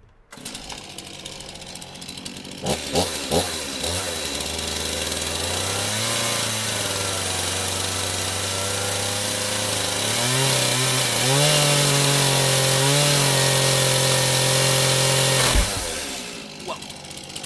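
Chainsaw running hard as it cuts into a cardboard iPhone box. The engine comes in suddenly just after the start, climbs in pitch twice as it is revved harder, then drops back sharply to a quieter idle about 15 seconds in.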